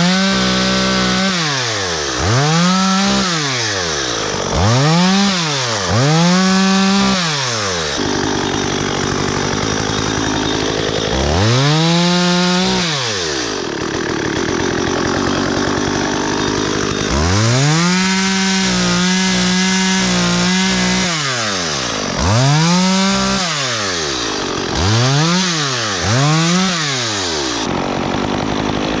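STIHL MS 194 T top-handle two-stroke chainsaw being revved again and again: each time the engine climbs quickly to full speed, holds there a second or so, then drops back toward idle. Near the middle it runs lower and rougher for several seconds, and later it holds full speed longer with a brief stutter.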